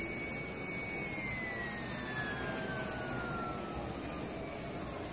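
Distant military aircraft engine overhead: a thin high whine that, about a second in, slides gradually lower in pitch over a steady low rumble.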